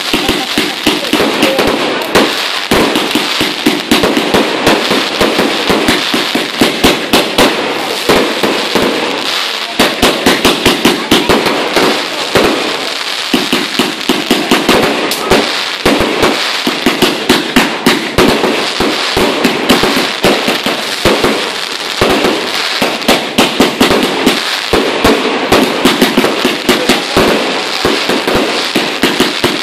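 Firework battery firing a rapid, unbroken string of sharp bangs, several a second.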